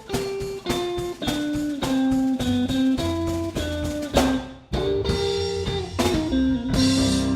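Band playing an instrumental passage: electric guitar picking a single-note melody over drums and bass, landing on a long held note with a cymbal crash near the end.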